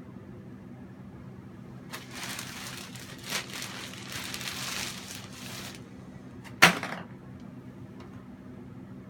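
A few seconds of rustling or scraping noise, then a single sharp knock, over a steady low hum.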